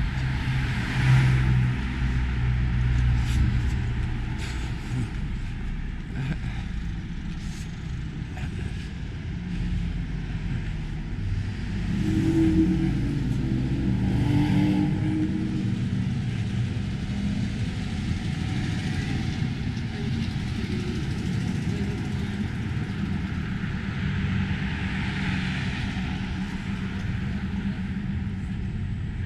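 Street traffic: cars passing on a city street, their engine and tyre noise swelling and fading a few times over a steady low rumble.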